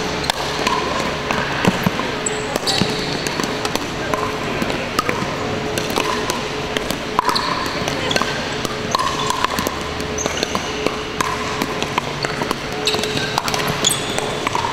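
Pickleball doubles rally: paddles popping against a plastic ball at irregular intervals, with short high squeaks from shoes on the hardwood court and sharp hits from play on neighbouring courts.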